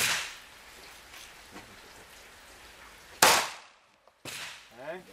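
Two pistol shots fired about three seconds apart, the first right at the start and the second louder, each a sharp crack with a short echoing tail.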